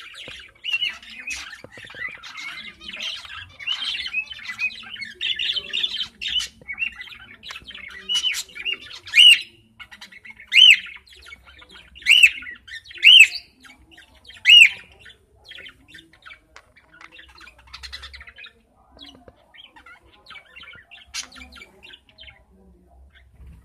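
Budgerigars chattering and warbling while a pair mates, with a run of about six loud, sharp squawks in the middle before the chatter thins out near the end.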